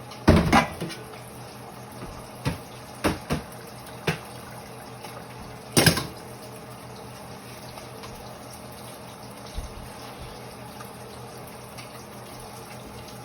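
Kitchen tap water running in a steady hiss, with a handful of sharp knocks and clatters from kitchenware being handled in the first six seconds.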